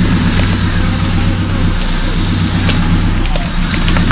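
Off-road competition vehicle's engine running steadily as the vehicle pushes through dense brush, with scattered sharp cracks of snapping vegetation.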